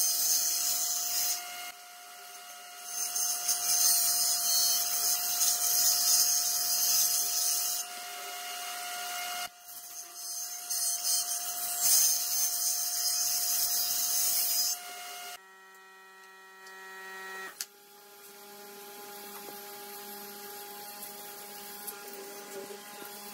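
Table saw cutting a pine board: the blade's hiss rises and falls over three passes, with the motor's steady whine carrying through the lulls. About fifteen seconds in the cutting stops and a quieter steady electrical hum is left.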